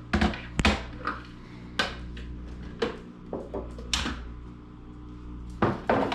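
Irregular clatter and knocks of kitchen containers and a lid being handled, about seven sharp knocks spread unevenly, over a steady low hum.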